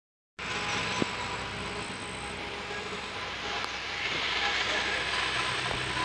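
Steady outdoor background noise, an even hiss with a low hum beneath, that cuts in about a third of a second in and grows a little louder about two-thirds of the way through.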